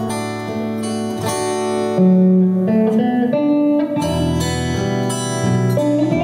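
Band playing an instrumental intro on strummed acoustic guitar, red hollow-body electric guitar and electric bass guitar. The bass steps between notes under the chords, and a run of rising notes comes about two to three seconds in.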